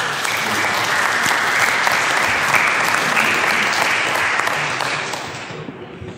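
Congregation applauding, holding steady for several seconds and then dying away near the end.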